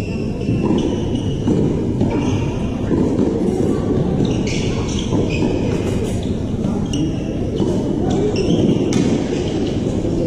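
Tennis ball being struck and bouncing on a hard court, a few sharp knocks over steady low background noise, with many short high-pitched squeaks in between.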